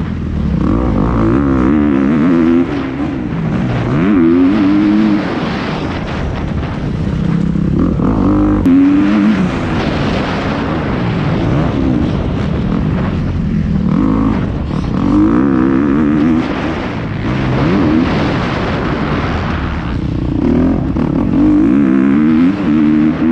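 Dirt bike engines revving, their pitch rising and falling again and again with throttle changes.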